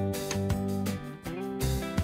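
Instrumental background music with sustained notes and regular percussive hits.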